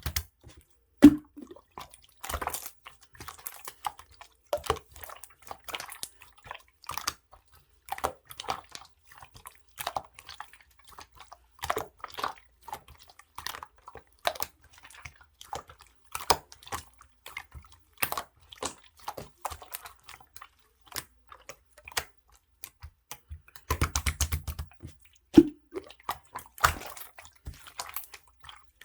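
Clear slime being squished and worked by hand: a steady irregular run of sticky clicks and small wet pops, thickening into denser crackling near the start and again about 24 seconds in.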